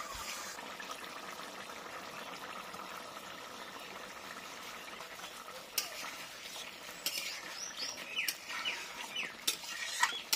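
Egg curry simmering and sizzling in a metal kadai while a spatula stirs and scrapes it, with a sharp clack of the spatula against the pan about six seconds in.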